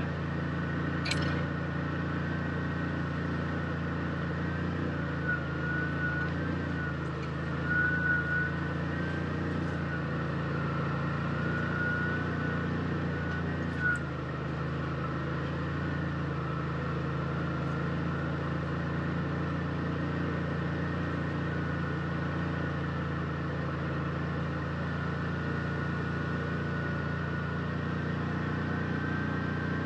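Side-by-side UTV driving steadily on a trail: a low engine drone with a high whine that wavers in pitch above it, and a few brief knocks.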